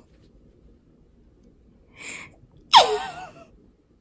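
A person sneezes once, about three seconds in: a short breath in, then a sharp, explosive burst with a voiced tail that falls in pitch.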